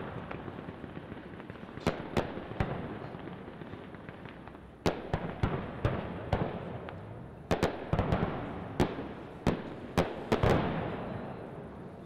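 Aerial fireworks bursting: over a dozen sharp bangs in irregular bunches, coming thickest in the second half, each trailing off in an echo over a steady wash of noise.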